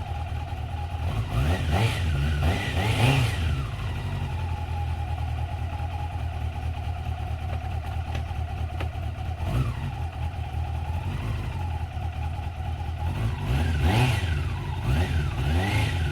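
Motorcycle engine running at idle with throttle blips. It revs up and falls back a few times: once early, briefly in the middle, and several quick blips near the end.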